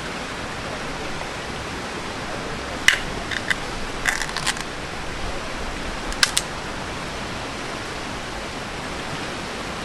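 Steady rushing noise, like running water or a fan, with a few short sharp clicks and taps about three, four and six seconds in.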